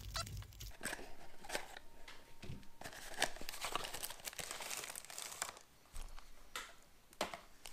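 Rustling and crinkling as a small cardboard box's flap is opened and a pocket radio in a plastic bag is slid out and handled, in a run of short scrapes and clicks.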